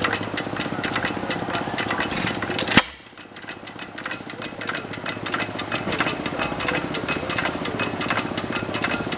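A running engine or machine with a rapid, even, rhythmic clatter. There is a single sharp bang about three seconds in, after which the running sound is quieter for a few seconds before it builds back.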